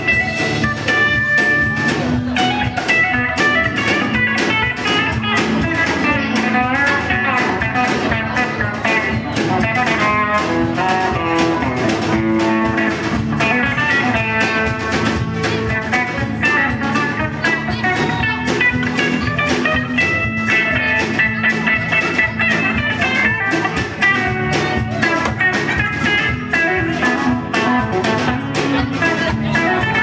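Live country-rock band playing a blues-tinged number: electric guitars, bass guitar and a drum kit keeping a steady beat.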